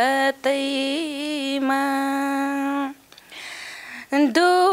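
A woman singing a Nepali folk song unaccompanied, holding long, wavering notes. She breaks off briefly about three seconds in, then picks the line up again.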